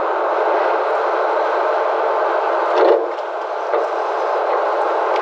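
Steady, muffled machine noise as the manure spreader's rear door is lowered along its thawed track, with a bump about three seconds in.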